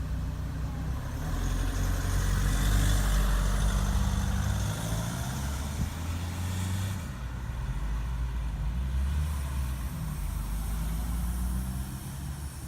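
Street traffic: a vehicle engine hums steadily, and from about a second in a louder passing vehicle with a hiss swells up, then fades about seven seconds in.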